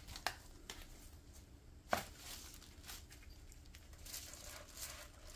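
Faint handling of a hardcover book in nitrile-gloved hands: scattered light taps and rustles as the book is turned and its cover opened, with one sharper knock about two seconds in.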